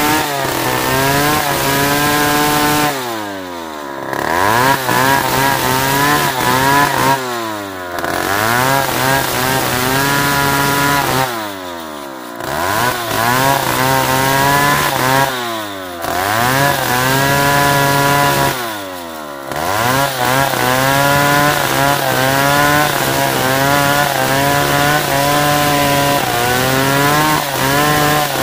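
Two-stroke chainsaw ripping a Merbau log lengthwise, running at full throttle under load. Five times in the first twenty seconds, about every four seconds, the engine drops briefly and revs back up, then it runs steadily through the cut.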